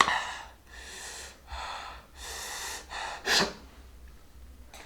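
A man breathing hard through his mouth, about five sharp hissing breaths in and out, to cool a tongue burning from extremely spicy noodles.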